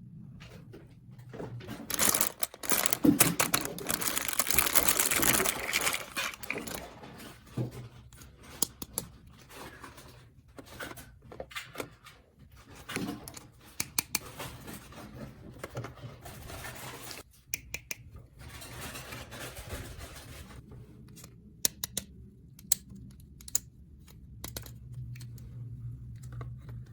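Small plastic toy pieces and packaging being handled: a loud rustle for a few seconds near the start, then scattered light clicks and softer rustling.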